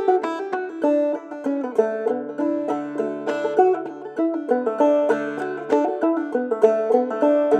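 Clawhammer banjo and fiddle playing an old-time tune together: quick, rhythmic plucked banjo notes over longer held fiddle notes.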